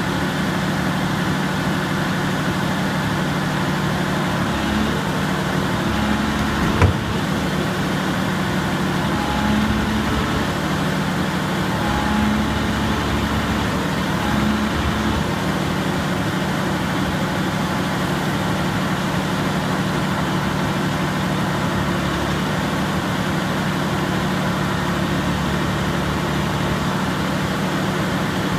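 Volvo EC460CL tracked excavator's diesel engine running steadily, its note shifting a few times in the first half as the machine is worked. One sharp knock about seven seconds in is the loudest moment.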